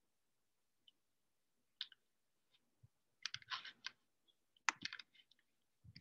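A handful of faint, short clicks and light rustles at irregular intervals, close to the microphone.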